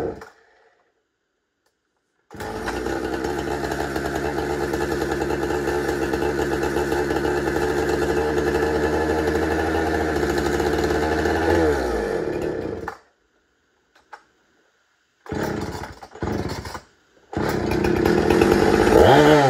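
Husqvarna 455 Rancher's two-stroke chainsaw engine: it idles steadily for about ten seconds, sags and dies, catches twice briefly, then runs again with one rev before dying out. The saw won't hold running, which the owner puts down to a fuel mixture that is too lean.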